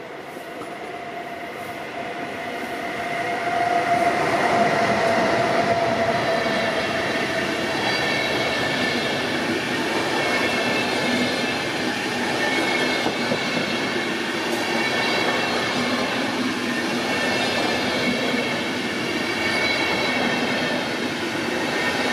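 DB Class 101 electric locomotive hauling an Intercity train approaches and passes close by, its sound growing louder over the first four seconds or so. Then the long rake of IC coaches rolls past with steady wheel-on-rail noise and high squealing tones.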